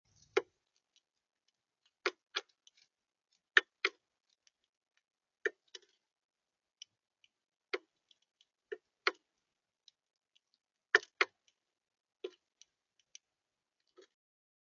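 Sharp, irregular taps of a bird pecking at the feeder close to the microphone, often in quick pairs, with near silence in between.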